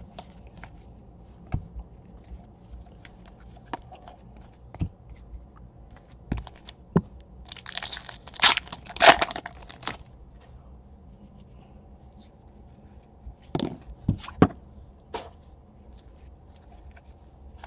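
A foil trading-card pack wrapper being torn open, a crinkly tearing lasting about two seconds in the middle. Light clicks and snaps of cards being handled come before and after it.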